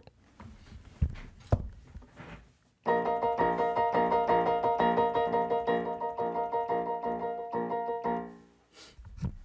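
Piano keyboard playing one chord struck over and over, about three times a second, for roughly five seconds from about three seconds in, then dying away; it is a suspended chord, the fourth above the bass held in place of the third. A few soft knocks come just before the playing.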